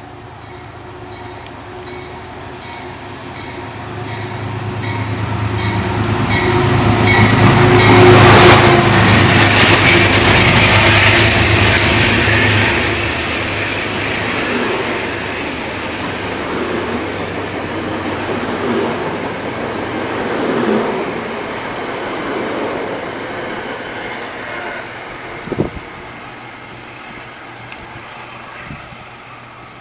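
Metro-North diesel-hauled push-pull train passing close by the platform. The locomotive's diesel engine hum builds and is loudest about eight seconds in as it goes by. The coaches' wheel-on-rail rumble follows and slowly fades as the train recedes, with one sharp knock near the end.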